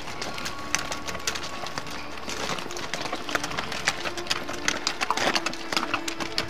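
Hooves of pack mules clopping irregularly on a stony trail, a quick scatter of sharp knocks as several animals walk past.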